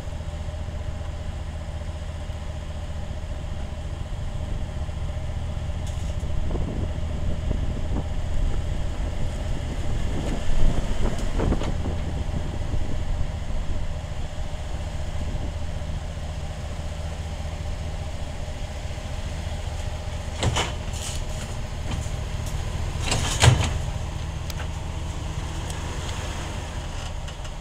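Hyundai hatchback's engine running at low speed as the car creeps up steel ramps onto a tow dolly, the engine sound swelling briefly about midway. About two-thirds of the way through come two sharp metal clanks a few seconds apart, the second the louder, as the wheels ride onto the dolly's steel ramps and platform.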